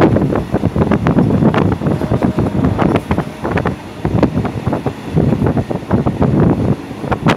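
Moving passenger train heard from on board: wind buffeting the microphone over the running noise, with frequent short knocks and rattles.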